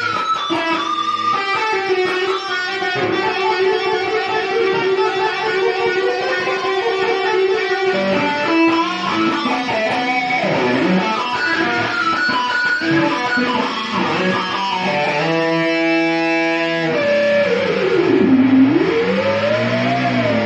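Ibanez RGA42HPT electric guitar playing a lead line of held, ringing notes. Near the end a long note swoops down in pitch and comes back up.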